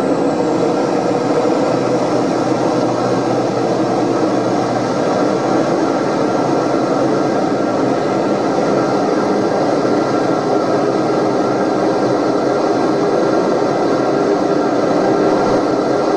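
Piper Meridian's Pratt & Whitney PT6A turboprop and propeller heard inside the cabin, a steady drone with a constant tone through the final approach and landing; a low hum fades out about five seconds in.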